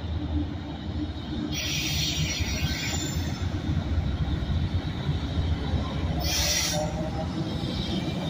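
Diesel freight locomotives approaching slowly, their engines rumbling steadily, with two brief high hissing bursts about two and six seconds in.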